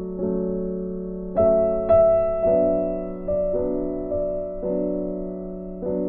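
Soft background piano music, with single notes struck about once or twice a second, each fading away.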